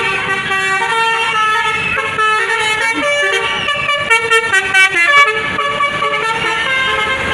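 Telolet (basuri) multi-tone bus horn playing a tune of held notes that step from pitch to pitch, with a run of quick short blasts about four seconds in.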